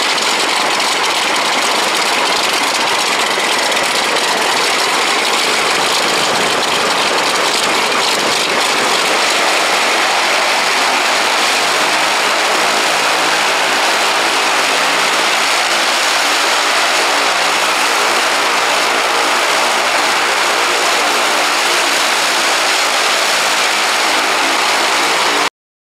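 Hawker Sea Fury's large radial engine running steadily on the ground with its propeller turning, a loud even drone that settles into a steadier pitched hum about halfway through. The sound cuts off abruptly near the end.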